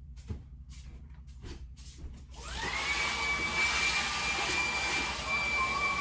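A few soft taps, then about two and a half seconds in a cordless stick vacuum cleaner switches on. Its motor spins up to a steady high whine over a rush of air.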